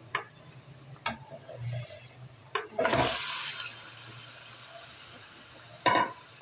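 Raw chicken pieces scraped off a plate with a silicone spatula into hot oil and masala in a steel pot. A few light knocks of spatula on plate and pot are followed, about three seconds in, by a burst of sizzling as the chicken goes in, which then settles to a soft steady sizzle.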